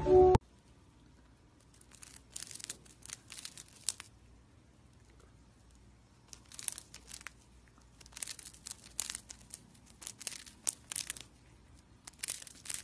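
A hamster crunching a pink wafer biscuit, in runs of rapid crisp bites with short pauses between.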